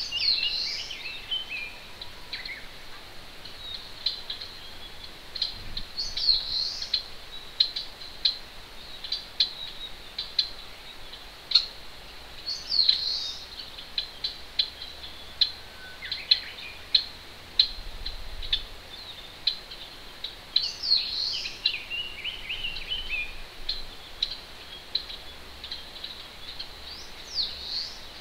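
Wild songbirds singing, with many short sharp high chips and one bird repeating a brief swooping phrase every six or seven seconds. Under them is the steady hiss of a distant mountain stream.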